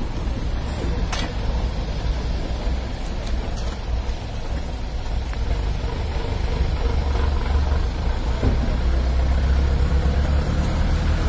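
Steady low rumble of outdoor background noise, growing heavier in the second half, with one sharp click about a second in.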